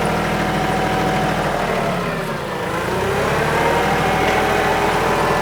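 TYM 2515H compact tractor's diesel engine running under load as the front loader lifts a heavy weight. A whine in the engine sound dips in pitch about two and a half seconds in, then climbs back.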